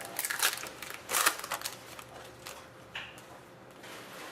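Rustling and crinkling as hockey trading cards and their packs are handled. It comes in a few short bursts in the first second and a half, then a faint single crackle about three seconds in.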